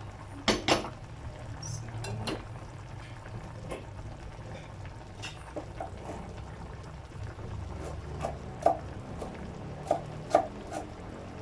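Cooking utensils and cookware clinking against each other as ingredients are handled and added to a pot of soup, in sharp clicks. There are two loud clinks about half a second in and several more near the end, over a low steady rumble.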